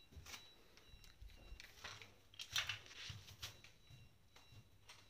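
Faint handling noises: a few soft clicks and rustles, most of them about two and a half to three and a half seconds in, over a faint steady high whine.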